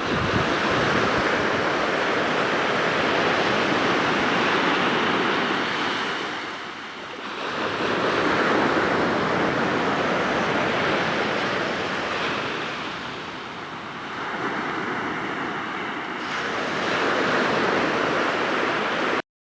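Surf breaking and washing on the pebble shore of Shichiri-mihama, a steady hiss that swells and ebbs with each wave, rising again about eight seconds in and once more near the end. It cuts off suddenly just before the end.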